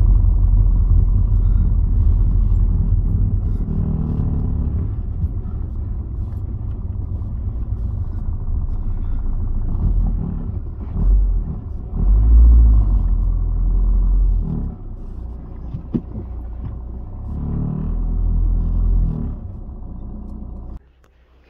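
Car on the move, a steady low rumble of engine and road noise that swells and eases, cutting off abruptly just before the end.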